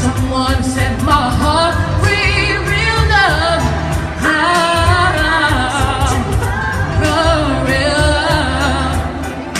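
Female singer performing a pop song live over a backing track with a steady bass beat, the voice sliding through ornamented runs.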